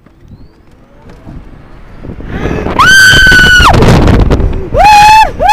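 A passenger screams, one long high held scream about three seconds in and shorter, falling cries near the end, as wind and road noise build under hard acceleration in an open-top Tesla Roadster.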